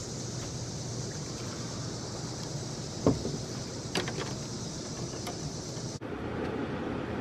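Steady outdoor background on a fishing boat: a low hum under a high hiss, with a knock about three seconds in and a sharp click a second later. Near the end the background changes suddenly to a broader, lower rushing sound.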